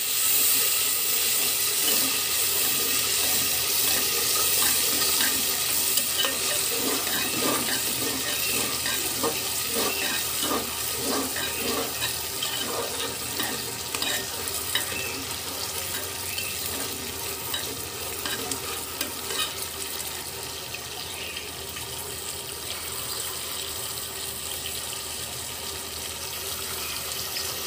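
Green peas and browned onions sizzling as they sauté in an aluminium pressure cooker, with a metal spoon scraping and clinking against the pot as they are stirred. The stirring clatter is busiest in the first half and thins out later, while the sizzle goes on.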